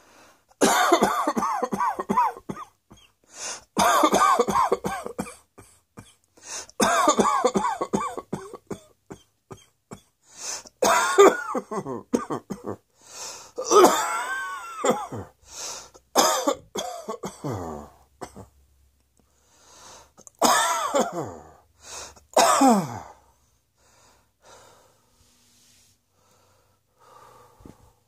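A person coughing hard in about seven fits, each a run of sharp coughs with pitched, voiced sounds in them that slide down in pitch at the end of some bouts. The coughing stops about 23 seconds in.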